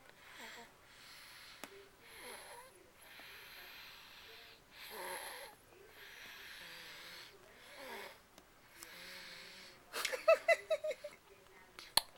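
A sleeping baby snoring: soft, wheezy breaths repeating about every second or so. About ten seconds in comes a quick run of about seven squeaky pitched sounds, then a sharp click near the end.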